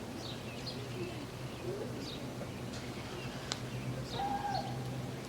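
Short, falling bird chirps repeated every second or so over a steady low hum.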